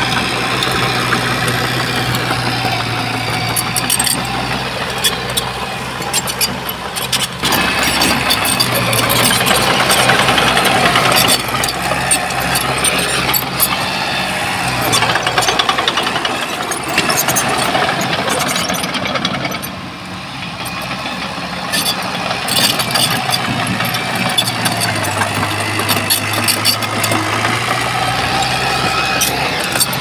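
Diesel engine of heavy earthmoving machinery (bulldozer or dump truck) running, with frequent metallic clanks and rattles over it. The engine dips briefly about two-thirds of the way in.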